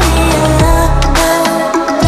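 Background pop music: an electronic track with deep bass, a steady beat and a sliding synth or vocal melody.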